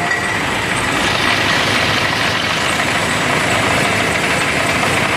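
Nissan Sunny's engine running in gear on a lift, turning the front-left wheel hub and brake disc, with a faint high tick about three times a second from the spinning wheel. The hub is bent, so the disc wobbles and shakes the brake caliper, the cause of the knocking noise when braking.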